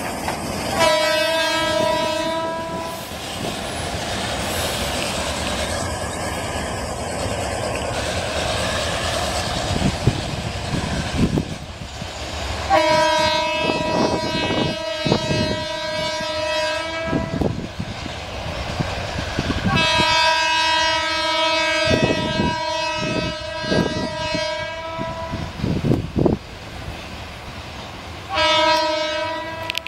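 A GE U11B diesel locomotive's horn sounds four times: a short blast about a second in, two long blasts of several seconds each in the middle, and a short blast near the end. Between the blasts come the rumble and wheel clatter of the work train's cars hauling up the grade.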